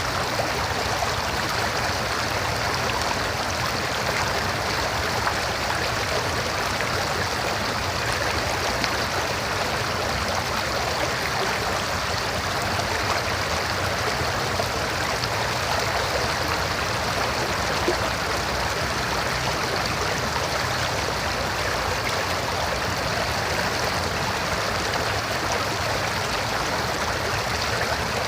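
River water flowing over rocks, a steady rushing and babbling with no pauses.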